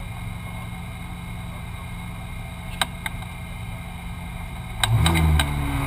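Ferrari 458 Challenge's 4.5-litre V8 idling steadily, heard from inside the cabin. About five seconds in the engine note steps up sharply and gets much louder. Two sharp clicks come near the middle.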